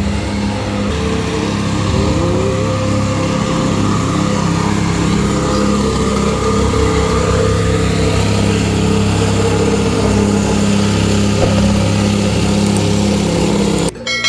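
Excavator's diesel engine running steadily, cut off suddenly near the end.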